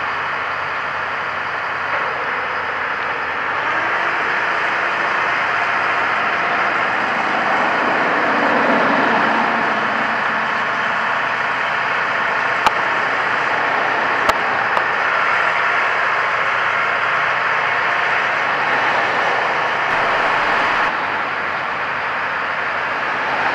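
Heavy diesel engine of a mobile crane running steadily while it holds a locomotive wheelset on its chains. Two sharp metallic clicks come about halfway through.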